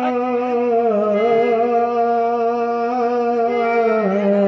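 A musical instrument holds long, steady notes, with small changes of pitch about a second in and again near the end.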